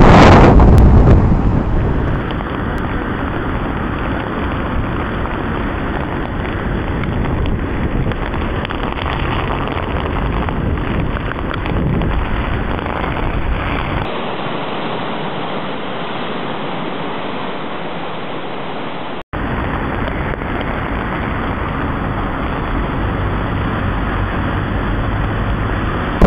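Heavy storm surf breaking and rushing over rocks and shore, with wind buffeting the microphone. The sound changes abruptly a few times where separate recordings are cut together, with a brief dropout about two-thirds of the way in.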